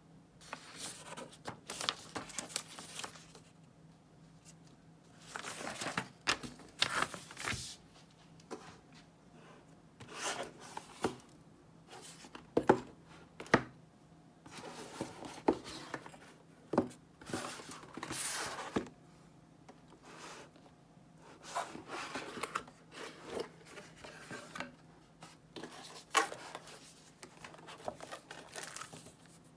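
Packaging being handled and opened by hand: bursts of crinkling, rustling and tearing with sharp clicks and knocks, broken by short pauses.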